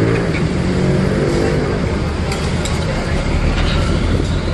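Road traffic: a motor vehicle engine running close by, fading out in the first second or so, over a steady low rumble of traffic.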